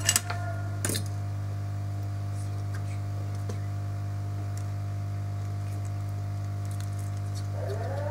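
Two sharp clicks about a second apart, near the start, over a steady low electrical hum.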